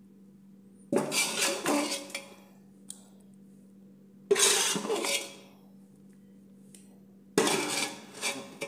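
A spoon scraping and clinking against a bowl of thick dal and potatoes, in three short bursts about three seconds apart, over a faint steady hum.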